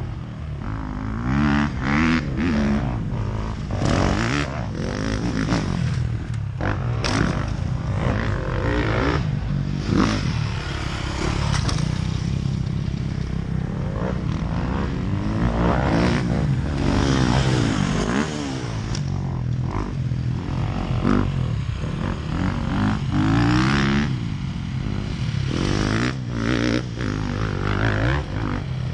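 Dirt bike engine revving up and dropping back again and again as the rider accelerates, shifts and brakes around the track, with wind rushing over the microphone.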